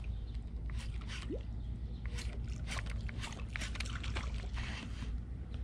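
Water lapping and sloshing against a plastic fishing kayak's hull over a steady low rumble, with a run of light clicks through the middle.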